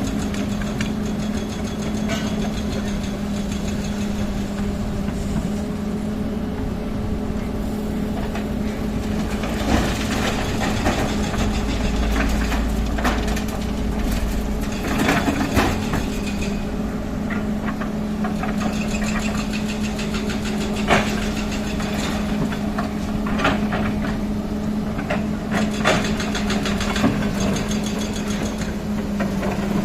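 Heavy diesel engine of earth-moving machinery running steadily, with several sharp metallic knocks from about ten seconds on, the loudest about twenty-one seconds in.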